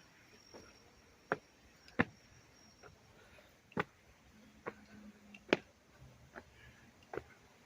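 A series of about seven sharp taps or clicks, irregularly spaced, the loudest about two seconds in and again about five and a half seconds in, over a faint high steady whine in the first half.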